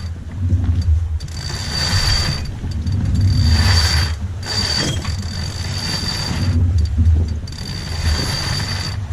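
Sailboat winch being worked during a sail change, ratcheting and giving a high thin whir in several spells as a line is hauled. Heavy wind noise on the microphone underneath.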